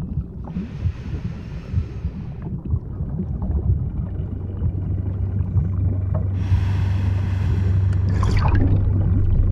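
Underwater ambience: a deep steady rumble, with a low hum that grows in from about halfway through. Twice it is joined by a stretch of airy hissing, the second ending in a short burst of bubbling.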